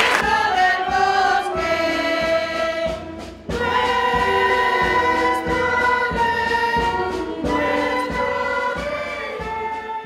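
A choir singing a hymn in long held chords of several voices. The sound dips briefly about three seconds in, then the singing resumes and begins to fade near the end.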